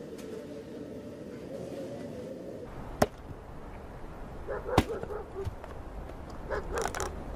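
An axe striking wood twice, sharp cracks about three seconds in and again near five seconds, as logs are split by hand. A few short animal calls sound in the background.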